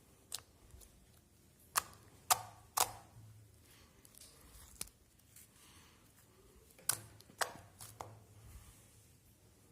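Slime being squeezed and pressed by hand, giving a run of sharp, irregular clicks and pops with faint squishing between them.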